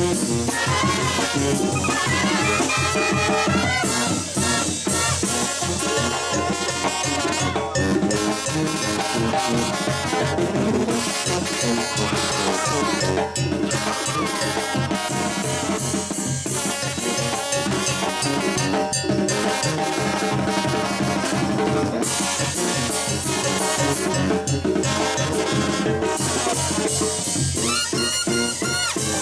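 Live brass band of sousaphone, trumpets and clarinets, playing a lively dance tune over a steady beat on bass drum with cymbal and snare drum. The sound is a banda's, loud and continuous.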